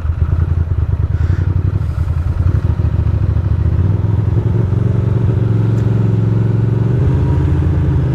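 Ducati Monster's V-twin engine idling with a choppy, lumpy beat, then from about halfway through pulling away with the revs climbing slowly.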